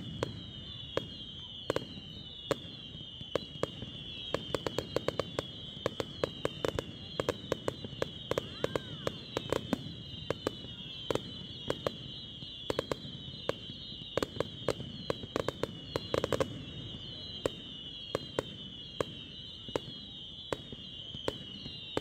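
Fireworks display: many sharp cracks and bangs of bursting shells, in dense flurries about five seconds in and again around fifteen seconds in. Under them runs a high whistle that falls in pitch over and over.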